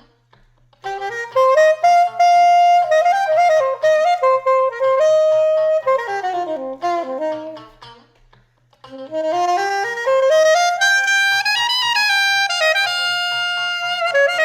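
Saxophone improvising in two phrases over a funk groove, a short break between them about eight seconds in. The lines move between the D Dorian scale and the A altered scale, whose notes sound outside against the D minor harmony.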